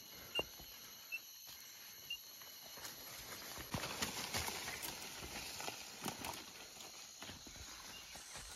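Footsteps crunching through dry leaf litter and brushing through undergrowth, with irregular crackles that are busiest from about four to six seconds in.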